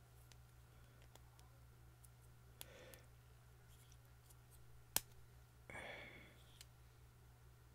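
Faint clicks and light rustles of plastic action-figure parts being handled, with one sharper click about five seconds in, over a low steady hum.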